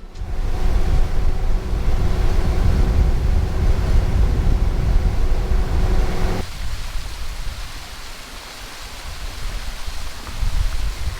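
Steady rushing noise of water and wind with a strong deep rumble; about six seconds in it cuts to a quieter, hissier rush of flowing water.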